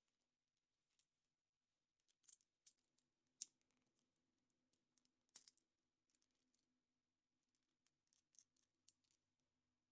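Near silence broken by faint, scattered clicks and crinkles of small objects being handled: foil, plastic capsule or toy parts. The clicks are irregular, with the sharpest about three and a half seconds and five and a half seconds in, over a faint steady hum.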